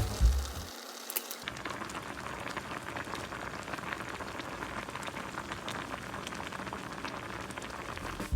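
Pot of budae-jjigae (Korean army stew) boiling, a steady dense crackle of bubbles popping.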